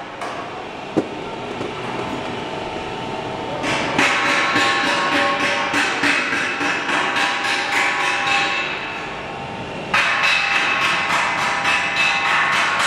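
Vacuum homogenizing emulsifying mixer running with a loud, regular, rapid knocking and a steady whine. The knocking starts about four seconds in, eases near nine seconds and starts again abruptly about ten seconds in.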